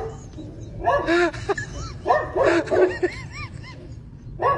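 A dog whining and yipping in three bursts of short calls that rise and fall in pitch, the first about a second in.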